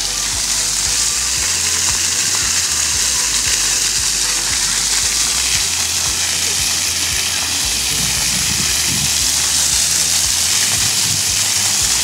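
Splash-pad water jets and sprinkler arms spraying and splattering onto wet pavement: a steady hiss of falling water.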